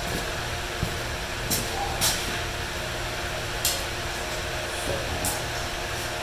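A steady machine hum, like a shop fan or heater running, with a few short light clicks and clinks of small metal Cleco fasteners and Cleco pliers being handled.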